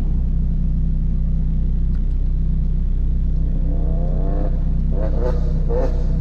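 Car engine idling with a steady low rumble. A higher, rising tone comes in briefly about four seconds in, and a few irregular mid-pitched sounds follow near the end.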